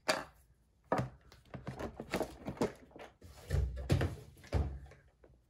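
Rummaging and handling noises of clicks and rustles, then two dull thuds about three and a half and four and a half seconds in as a small ink bottle is set down on a wooden desk.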